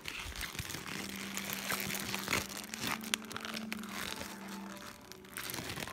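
Paper burger wrapper crinkling and rustling as the burger is handled, in a dense string of crackles.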